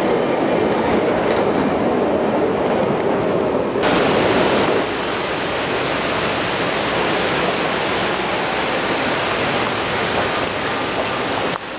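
Rumble of a train running past and away. After a cut about four seconds in, a steady rush of strong wind on the microphone.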